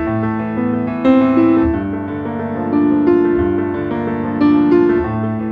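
Background music: a gentle piano or electric-piano piece playing sustained chords and a slow melody over a bass line.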